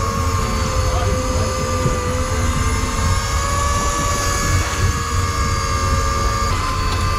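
Steady motor whine over a low drone, with wind buffeting the microphone.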